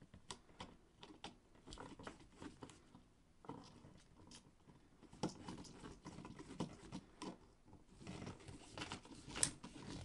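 Faint, irregular clicks and scrapes of a screwdriver turning down the brass terminal screw of a wall light switch to clamp a hooked wire, with one sharper click near the end.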